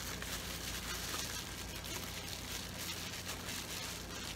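Plastic bubble wrap rustling and crinkling as it is handled and pulled loose from a camera, a soft continuous crackle over a low steady hum.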